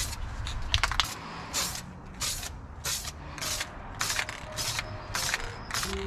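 Aerosol spray-paint can spraying metallic blue-green paint in a rapid series of short hissing bursts, each well under a second and repeated about every half second, with a few sharp clicks about a second in.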